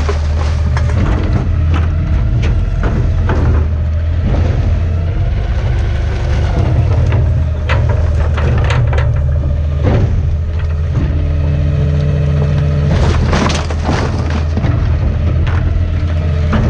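Garbage truck compacting trash in its hopper: repeated cracks and snaps of material breaking under the packer, over the truck's steady engine hum, with a cluster of louder cracks about thirteen seconds in.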